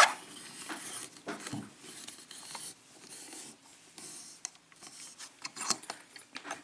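Small scattered metallic clicks and light scraping from handling a Sargent five-pin lock cylinder as it is opened up to get at its pins, with a sharper click a little before the end.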